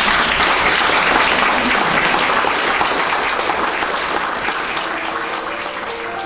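Audience applauding, a dense steady clapping that slowly fades.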